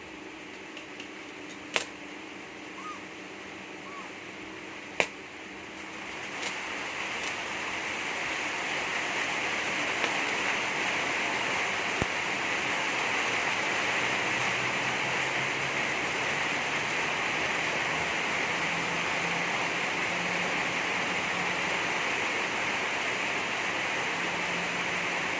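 Electric arc welding with a 950 W welding machine: a couple of sharp clicks as the electrode is struck, then from about six seconds in the arc catches and runs as a steady sizzling hiss.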